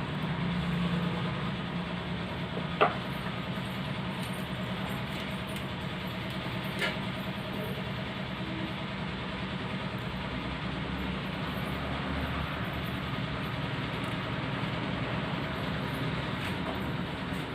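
Steady low rumbling background noise with a hiss, broken by a sharp click about three seconds in and a fainter one about seven seconds in.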